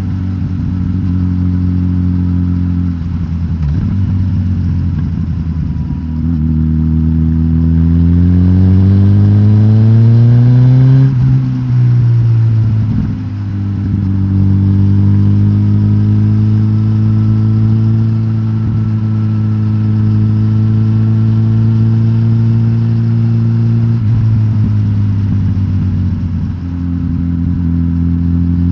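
Suzuki GSX-S1000GT's inline-four engine, de-catted with the stock exhaust, rising in pitch as it pulls through the revs. It breaks off briefly about halfway, then holds a steady note and starts climbing again near the end.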